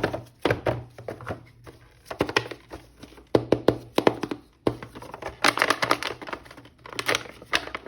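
Hands unpacking and handling a plastic toy action figure and its packaging: irregular taps, clicks and rustles.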